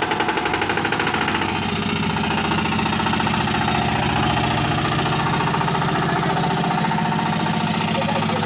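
VST Shakti 165DI 16 hp power tiller's single-cylinder diesel engine running steadily just after starting, with a fast even knocking beat that settles to a slightly quicker pace about a second and a half in.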